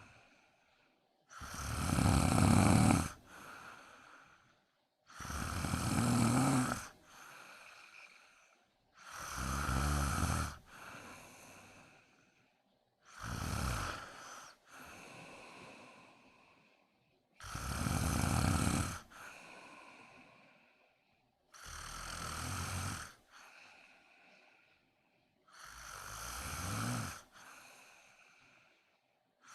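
A woman snoring in her sleep: seven loud snores at a steady pace, about one every four seconds, each followed by a quieter breath.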